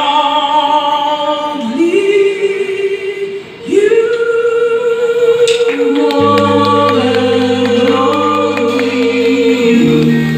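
Live band's lead and backing singers singing in harmony, ending on one long held note. A low sustained chord from the band comes in about six seconds in.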